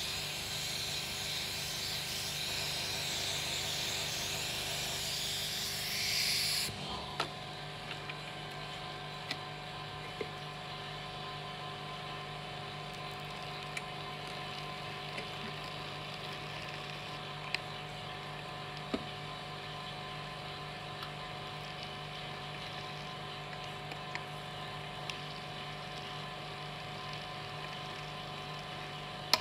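Air hissing into the holes of a vacuum hold-down mat, cut off suddenly about seven seconds in as the phone screen seals over them. After that comes the steady hum of the small motor of a wire spinning rod, with scattered light ticks as the wire scrapes OCA adhesive off the polariser.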